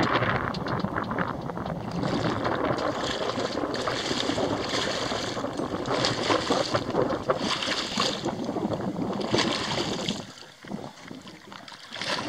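A hooked fish thrashing and splashing at the water's surface beside a boat, a dense, continuous splashing that stops suddenly about ten seconds in. Wind buffets the microphone underneath.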